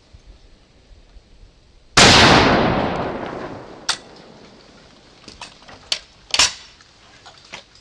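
A single shotgun shot, a sharp bang with a long fading echo, followed by a few short sharp clicks and knocks.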